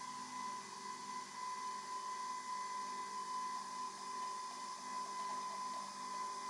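Nespresso Vertuo coffee machine running with a steady whirring whine.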